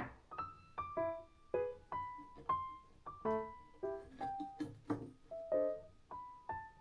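Background piano music: a light, unhurried melody of single notes that ring and fade, about two a second.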